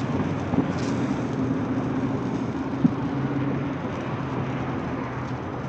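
Ground fountain firework spraying sparks with a steady hiss, under a faint low hum. A single sharp click comes near the middle.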